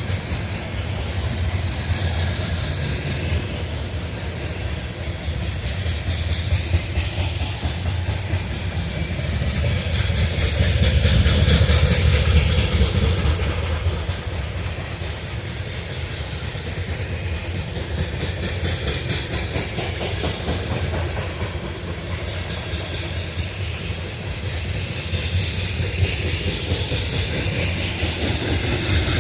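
Freight train of coal cars rolling past, a continuous steel-wheel rumble with rapid clicking over the rail joints. It swells louder about ten seconds in, then eases back.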